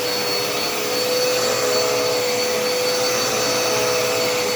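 Dirt Devil Endura Reach vacuum cleaner running steadily: an even rush of air with a constant motor whine that holds its pitch.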